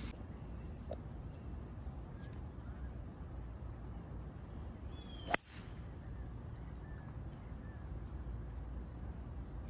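A golf driver strikes a teed ball once, a single sharp crack about five seconds in.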